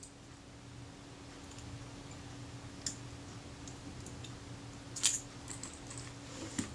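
A few light metallic clicks from tweezers and a small screwdriver handling tiny screws on a Kodak Retina IIIS shutter, the loudest about five seconds in, over a faint steady hum.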